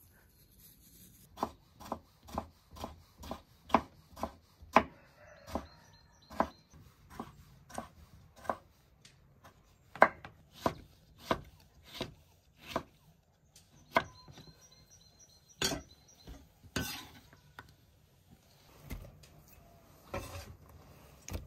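Knife chopping vegetables on a wooden cutting board: sharp knocks about two a second, then slower and more irregular over the last third.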